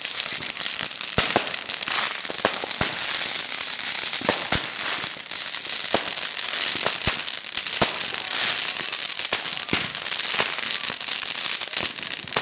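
Consumer fireworks going off: a steady fizzing hiss with sharp crackling pops scattered irregularly all through.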